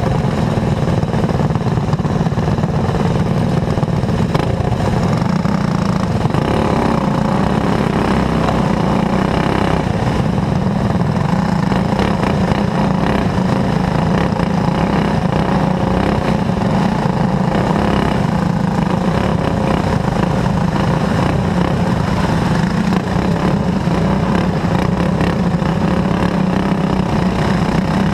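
Racing kart's clone engine, a small single-cylinder four-stroke, running steadily, heard close up from the kart itself, with no big revving up or down.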